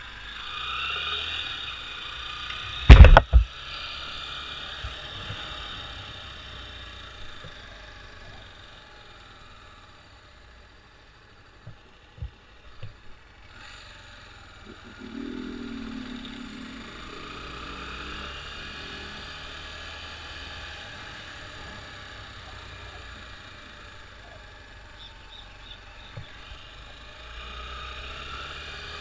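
Engine running steadily, with a loud sharp knock about three seconds in.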